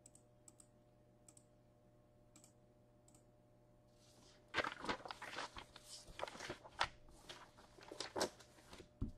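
Typing on a computer keyboard: a few faint scattered clicks, then a quick run of keystrokes starting about four and a half seconds in.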